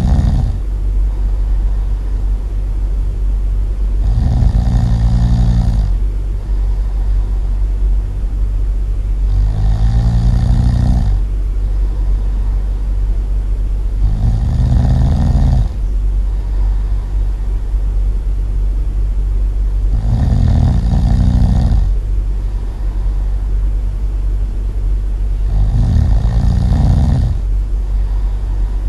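Loud snoring, one long snore every five to six seconds, each lasting about a second and a half, over a steady low hum.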